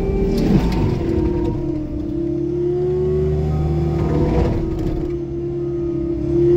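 Bobcat T76 compact track loader's diesel engine and its hydraulically driven Loftness forestry mulcher drum running steadily under load, with two rougher, noisier surges about half a second and about four seconds in as the drum's teeth chew into brush and wood.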